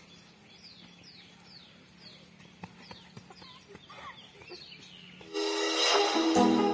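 Faint outdoor quiet with a small bird repeating short, quick falling chirps. About five seconds in, a loud rising whoosh sound effect cuts in, followed by the start of outro music with held notes.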